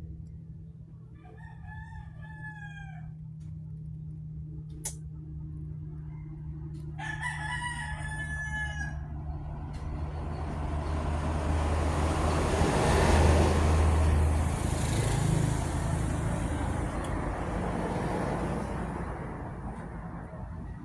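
A rooster crows twice, each crow lasting under two seconds, about five seconds apart. Then a broad rush of noise swells up, peaks and slowly fades over about ten seconds, over a steady low hum.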